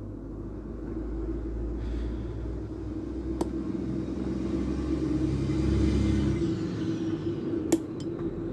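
Low rumble of a passing road vehicle, swelling to its loudest a little past the middle and then fading, over a steady low hum; two sharp clicks stand out, one about three seconds in and one near the end.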